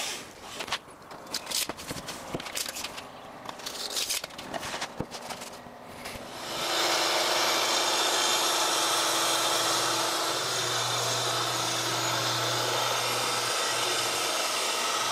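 Irregular clicks and rubbing from handling a tape measure and plywood for about six seconds, then a Festool TS 75 plunge-cut track saw starts and runs steadily, cutting through a sheet of plywood along its guide rail.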